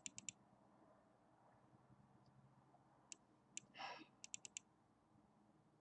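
Computer mouse clicking over near silence: three quick clicks at the start, two single clicks about three seconds in, then a fast run of four clicks. A brief soft hiss comes just before the run of four.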